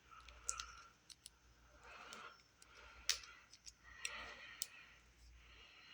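Faint, scattered sharp clicks and light rattles of batteries and a plastic battery holder being handled while loading a flashlight.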